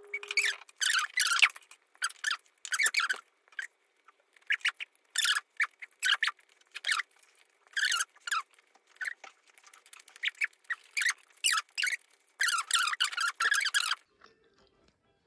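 A person eating a bowl of rice close to the microphone: irregular chewing and mouth sounds in short bursts, stopping about a second before the end.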